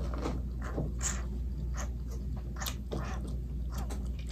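Close-miked chewing of spaghetti and cheese-stuffed meatball: wet mouth smacks and clicks, several a second, irregular.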